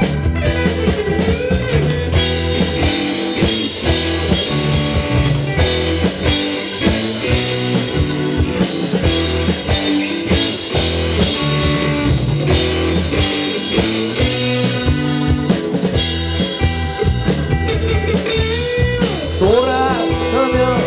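Live rock band playing an instrumental passage between verses: electric guitar over drum kit, bass guitar and keyboard.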